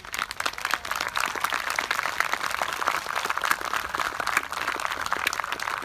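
Audience applause, many hands clapping at once, breaking out suddenly and holding steady.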